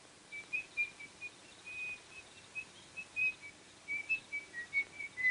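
A person whistling a tune in short, quick notes, about three or four a second, dipping lower in pitch near the end.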